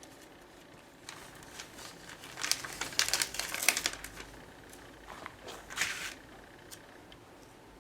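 Hands working at a bench with small leather pieces and tools: clusters of light clicks and rustling, busiest about two to four seconds in and again near six seconds.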